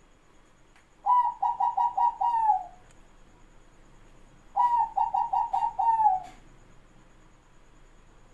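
Zebra dove (perkutut) cooing: two phrases a couple of seconds apart, each a run of quick stuttering notes that ends in a longer falling note.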